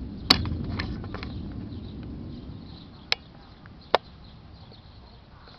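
Low rolling thunder dying away over the first few seconds. Three sharp ticks stand out against it, the loudest just after the start and two more near the three- and four-second marks.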